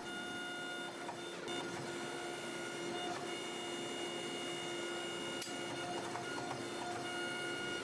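Hydraulic forging press running with a steady, even-pitched motor hum as its dies squeeze a hot steel billet.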